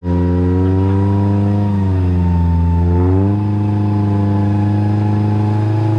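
Off-road 4x4's engine running at steady revs while the vehicle is bogged in deep mud. Its pitch sags about two seconds in and recovers a second later, as if the engine is being loaded.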